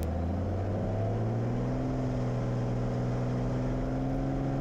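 Cirrus SR22's six-cylinder Continental engine and propeller going up to full takeoff power, heard inside the cabin: the pitch climbs over the first second or so, then holds steady as the plane accelerates down the runway.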